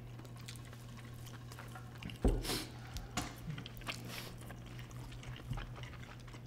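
Two people chewing chewy rice cakes in creamy basil sauce: faint wet mouth clicks and smacks, with a soft thump a little over two seconds in, over a steady low hum.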